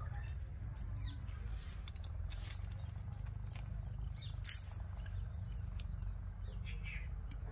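Hands tying thread at the top of a white plastic pipe: a scatter of small clicks and rustles, the sharpest about halfway through, over a low steady rumble.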